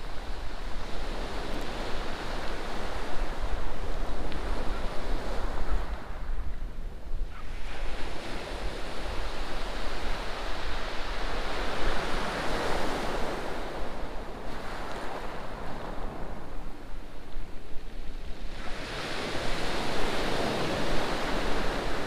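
Waves breaking on a shingle beach, the surf swelling and easing back every several seconds, with a steady low wind rumble on the microphone.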